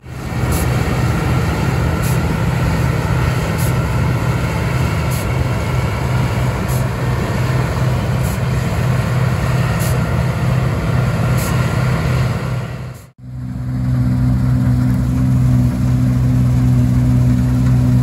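New Holland TX68 Plus combine harvester at work in barley, its 310-horsepower Iveco diesel engine and threshing machinery running steadily with a strong low hum. Faint ticks repeat about every second and a half. About 13 seconds in the sound breaks off for an instant and returns as a steadier, slightly louder engine hum.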